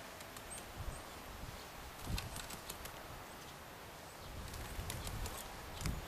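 Great spotted woodpecker pecking at peanuts through a wire-mesh feeder: bursts of quick, sharp taps about two seconds in and again near the end, with a few soft low thumps.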